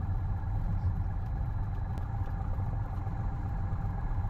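Continental O-300 six-cylinder engine of a 1967 Cessna 172H running steadily at low taxi power.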